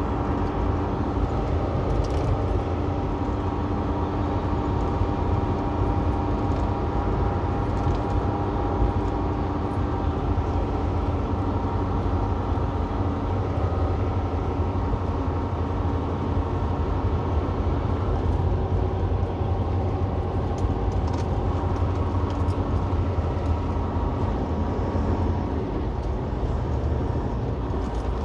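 Semi truck's engine and road noise heard inside the cab while cruising, a steady drone with an engine hum; its tone changes slightly about two-thirds of the way through.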